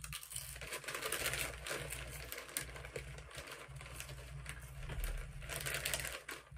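Doritos tortilla chips crunching as they are chewed, mixed with the crinkle of the foil chip bag being handled. A dense crackling full of small clicks, louder about a second in and again near the end.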